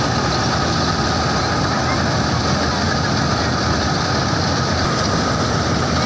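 Combine harvester running at work: its engine and threshing machinery make a loud, steady noise with a steady whine over it.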